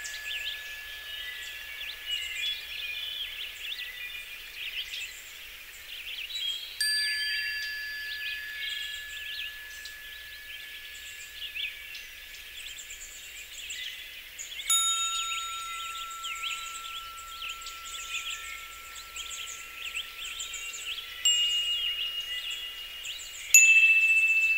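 Wind chimes ringing: a new chime tone is struck every several seconds and rings on slowly, the loudest near the end, over a busy high twittering.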